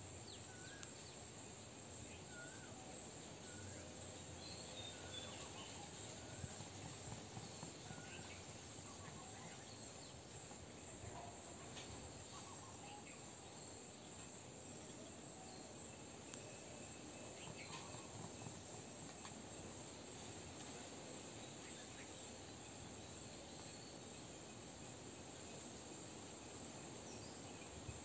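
Steady high-pitched insect chorus, crickets, running unbroken at low level. A faint repeated chirp sounds over the first several seconds, and a few soft ticks and scrapes come around the middle.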